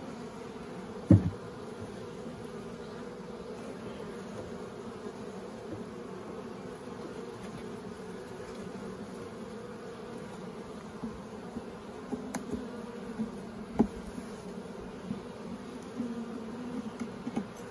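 Honey bees humming steadily in an open hive. A sharp wooden knock comes about a second in as a frame is set down into the hive, and a few lighter knocks and clicks follow near the end.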